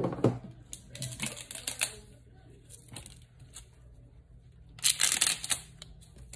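Handling noises from crinkling plastic: quick runs of crackles and clicks in three clusters, the loudest about five seconds in.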